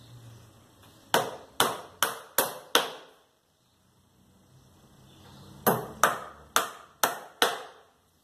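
Claw hammer driving nails into pallet wood: two runs of five quick blows, about two or three a second, each with a short ringing tail and a pause of a couple of seconds between the runs.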